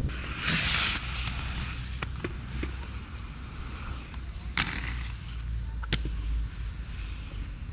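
Inline skates rolling on pavement with a steady low rumble, a short scraping hiss near the start, and three sharp clacks of skates striking the ground.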